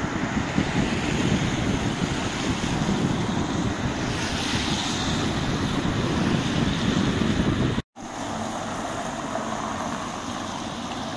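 Wind buffeting the microphone, a fluttering low rumble, over the noise of cars passing on a bridge road, one swelling past about four seconds in. The sound cuts out briefly near eight seconds, then comes back as quieter street traffic with much less wind.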